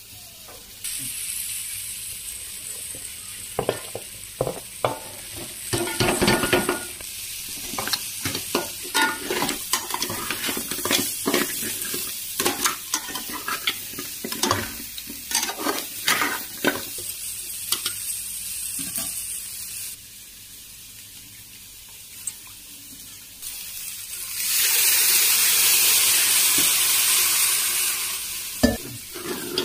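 Crab curry sizzling in a metal pan while a spoon stirs it, knocking and scraping against the pan in quick irregular clicks. Near the end a louder steady hiss runs for about four seconds as steam rises from the pan.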